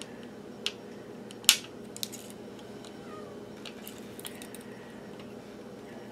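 A few light clicks and ticks of a small screwdriver blade against a circuit board and the toroid coil's wire, the sharpest about a second and a half in, over a steady low hum.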